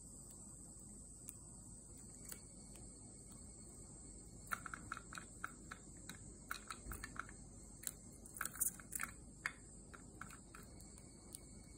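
Zebra finch pecking at a clear plastic foraging box, its beak tapping on the plastic in light ticks. A few scattered taps at first, then quick clusters of taps from about four and a half seconds in, busiest around eight to nine seconds.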